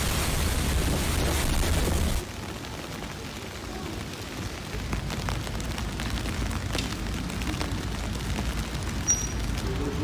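Blizzard wind buffeting the microphone, a heavy rumbling rush of noise that cuts off abruptly about two seconds in. A much quieter, steady outdoor hiss follows.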